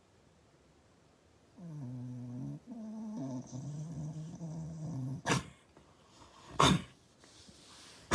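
A sleeping pet snoring: a low, pitched drone lasting about three seconds, then three short, sharp snorts about a second and a half apart.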